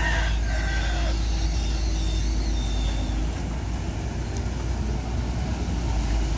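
Diesel engine of a CAT 320D long-arm excavator running steadily under load as the boom lifts a clump of weeds and the machine swings, a deep even rumble.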